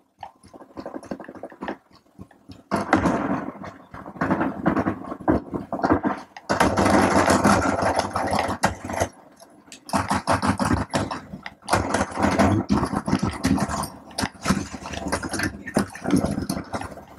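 Video game action sound effects played loud through a Platin Milan 5.1 WISA wireless surround speaker system, picked up by a microphone in the room: dense stretches of noise broken by a few short lulls.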